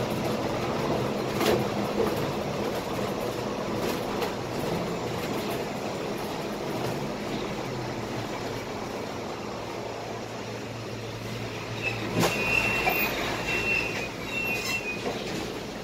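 Cabin sound of a Scania K320IA articulated bus under way: steady engine and road rumble with a few rattling clicks. A broken, high squeal comes in about twelve seconds in and lasts a few seconds.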